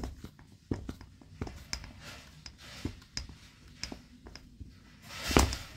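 Bow saw's plastic tensioning knob being turned and the saw handled by hand: a run of small, irregular clicks and creaks about every half second, with one louder scuff near the end.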